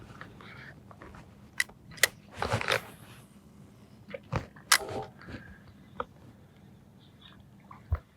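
Scattered sharp clicks and knocks of fishing tackle being handled, with a short burst of rustling noise about two and a half seconds in.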